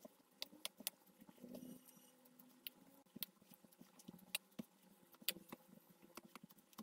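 Faint, irregular clicks and soft taps of mashed potato filling being mixed and pressed by hand in a plastic bowl.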